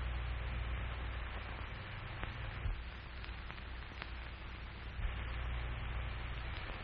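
Steady hiss and low hum of an old 1940s film soundtrack between lines of narration, with two faint clicks partway through.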